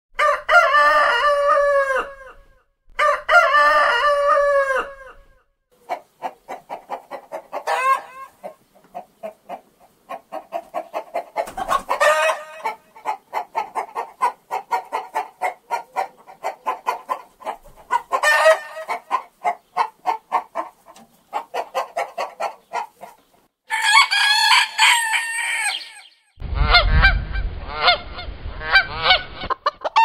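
A rooster crowing twice, then hens clucking in a long rapid run broken by a few louder squawks. Another crow comes about three-quarters through, and near the end there is more clucking over a low rumble.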